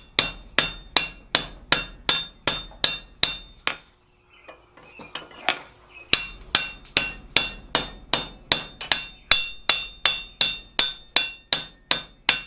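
Hand hammer striking the red-hot ring end of a forged steel clanger on a cone-shaped bickern set in the anvil's hardy hole, about three blows a second, each with a short bright ring, knocking off its corners and rounding it. The hammering pauses for about two seconds midway, with one lighter blow, then resumes at the same pace.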